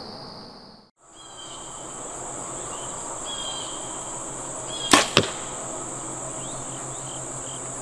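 A bow shot: a sharp snap of the string at release about five seconds in, then the arrow striking a block target about a quarter second later. A steady high insect buzz runs underneath.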